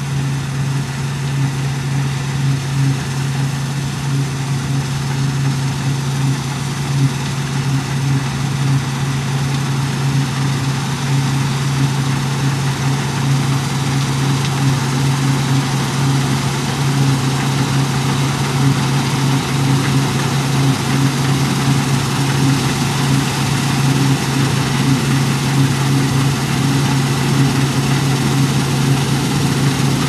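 A steady motor hum: one constant low tone with an even hiss over it, unchanging in pitch or level.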